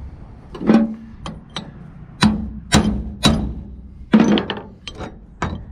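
Hammer striking a brass punch against wheel lug studs in a steel hub: about ten sharp metallic blows with a short ring, irregular, roughly two a second, driving the studs through the hub flange.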